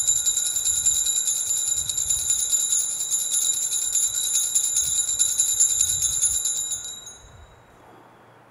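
Altar bells shaken in a rapid, continuous jingle at the elevation of the host after the consecration. The ringing stops about seven seconds in and dies away.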